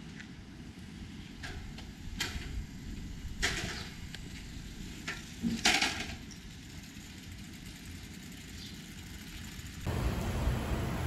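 Street background noise: a steady low rumble of traffic with a few short, sharp noises about two, three and a half and five and a half seconds in. Near the end it switches suddenly to a louder, deeper rumble.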